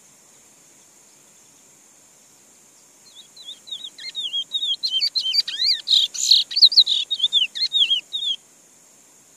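Chestnut-bellied seed-finch (picolet) singing one song beginning about three seconds in: a fast run of sliding whistled notes that builds in loudness and stops abruptly after about five seconds. A steady high insect drone runs underneath.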